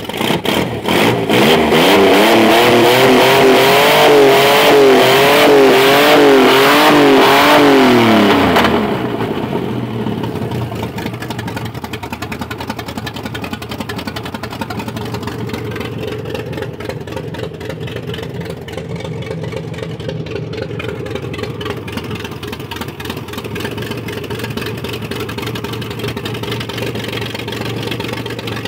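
Old Ford 3-litre V6 petrol engine revved by hand at the throttle linkage: the revs climb and waver up and down for about eight seconds, then drop back to a steady idle about nine seconds in.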